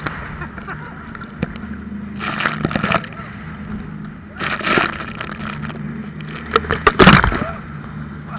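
Jet boat engine humming steadily under a rush of water, as rapids waves crash over the open boat in three loud splashes about two, four and a half and seven seconds in.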